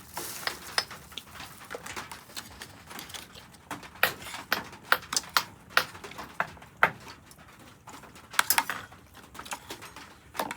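Irregular clinks and clicks of utensils against dishes, several a second at times and sharper in a cluster near the end.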